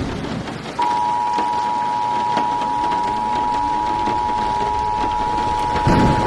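Emergency Alert System attention signal: two steady tones sounding together, about 853 and 960 Hz, starting about a second in and holding on. A brief low burst sounds over it near the end.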